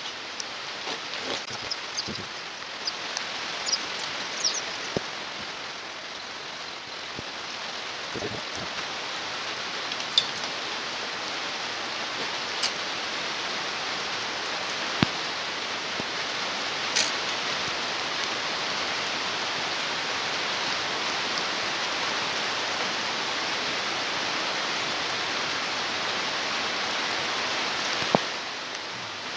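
A steady hiss throughout, with a few sharp metallic clicks as hands work a bicycle chain and rear derailleur.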